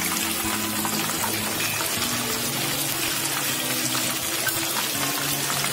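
Marinated quail deep-frying in hot oil: a steady, dense sizzle with fine crackling, with low background music underneath.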